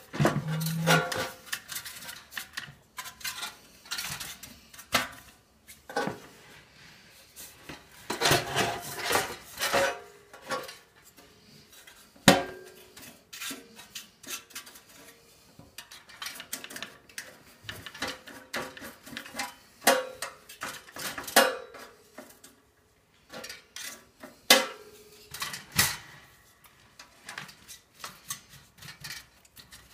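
Sheet-metal toaster casing and frame clattering and clinking as they are handled and fitted together, in irregular knocks and scrapes. The sharpest knock comes about twelve seconds in, and several knocks leave a brief metallic ring.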